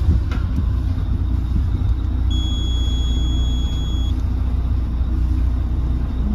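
Boat engines idling as a steady low rumble, with a high electronic beep lasting nearly two seconds about two seconds in, as the Xenta joystick control system is engaged.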